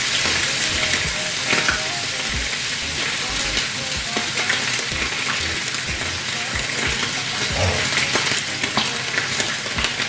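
Slices of meat frying in a hot pan: a steady sizzle with scattered crackles and pops.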